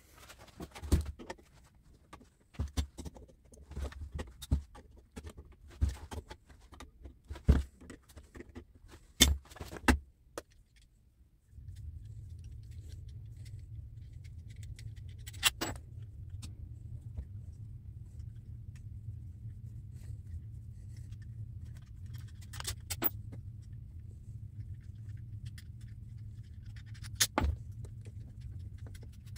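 Scattered light metal clicks, clinks and knocks as a small electric motor is taken apart by hand, its end bell and small metal parts handled on a wooden workbench. About a third of the way through, a steady low hum sets in under the occasional clinks.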